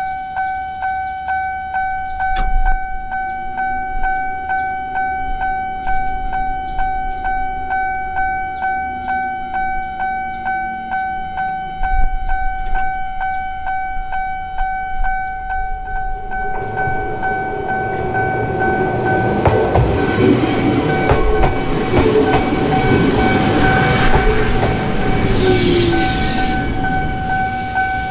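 Japanese level-crossing warning bell ringing steadily at about two strikes a second. About sixteen seconds in, a Gakunan Railway train rolls over the crossing, adding rumble and wheel clatter on the rails, with a high hiss near the end as it passes.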